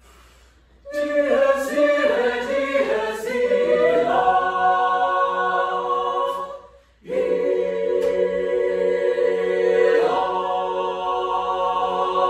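Mixed choir singing a cappella: a phrase of moving parts that settles into a held chord, a brief break about seven seconds in, then a second long held chord.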